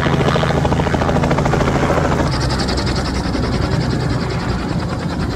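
Helicopter flying close: a loud, rapid rotor chop over a steady low engine drone, joined by a high steady whine about two seconds in.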